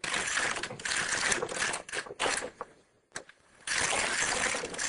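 Carriage of a double-bed domestic knitting machine being pushed across the needle beds, a clattering whir as it knits a row, then, after a short pause, a second pass begins about three and a half seconds in. These are test rows at the newly set stitch sizes.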